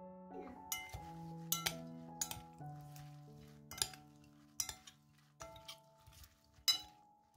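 Utensils clinking against a glass salad bowl: several sharp clinks at uneven intervals, the loudest near the end. Soft piano music plays underneath.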